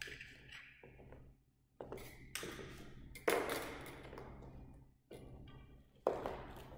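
Several sharp knocks and taps with a short hall echo, the loudest about three seconds in, as fencing gear and wooden sticks are handled, picked up and set down. A brief light metallic ring follows about two seconds later.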